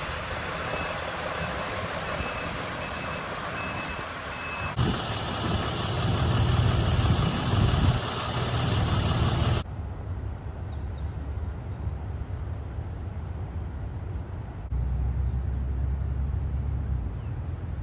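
A vehicle's reversing alarm beeping at an even pace over steady outdoor noise for the first few seconds, then a heavy engine running with a low rumble. After about ten seconds it is quieter, with a low engine hum and a few short high chirps.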